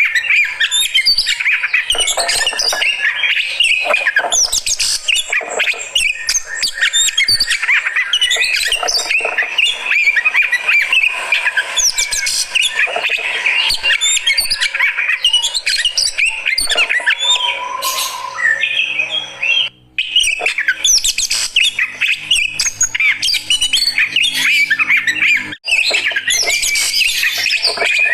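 Oriental magpie-robin (kacer) singing continuously in a dense stream of rapid chirps, trills and harsh notes, as a fighting male does when roused. The song breaks off briefly twice in the latter half.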